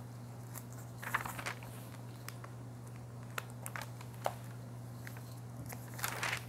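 Bible pages rustling as they are leafed through, in short bursts with a few soft clicks, over a steady low electrical hum.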